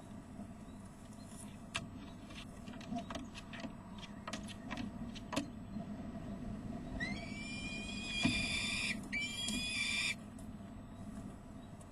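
Adult peregrine falcon giving harsh alarm calls in two runs, a long one about seven seconds in and a shorter one just after: a warning at a young falcon fluttering on the edge of the nest ledge. A few faint clicks come before.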